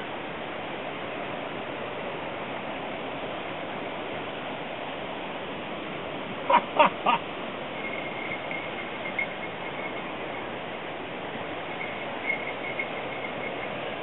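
Fast mountain creek rushing over rocks in whitewater, a steady even noise. About six and a half seconds in, three short calls rise above it.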